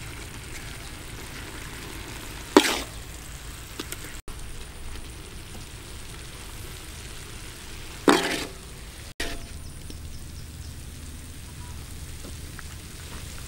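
Chicken gizzards sizzling in a hot wok while a metal spatula stirs and scoops them, with a steady frying hiss. Two loud, sharp clatters of the spatula against the wok come about two and a half and eight seconds in.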